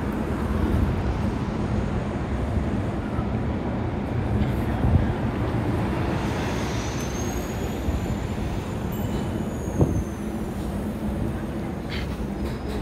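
Steady low rumble of a large vehicle running, with a faint high whistle that rises and falls midway and a single sharp knock near the end.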